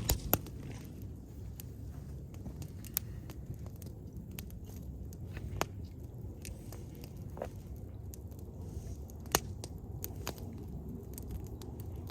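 Campfire crackling: scattered sharp pops over a steady low rumble, the loudest right at the start and about nine seconds in.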